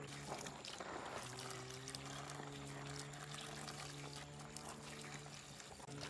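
Water running steadily from a clear plastic garden hose and splashing onto star fruit as they are rinsed by hand.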